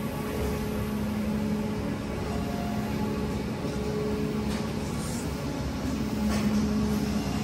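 Steady machinery hum: a low rumble under a constant pitched drone, with a few faint clicks.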